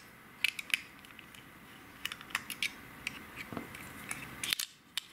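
Scattered small plastic clicks and taps as a screwdriver works the screws out of an LED headlamp's plastic housing and the housing is handled, with a louder cluster of clicks about four and a half seconds in.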